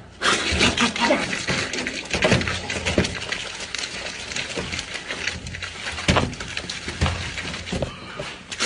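A whole peeled watermelon being bitten and torn apart by mouth: a quick run of wet, crunching, squelching bites as the flesh breaks up.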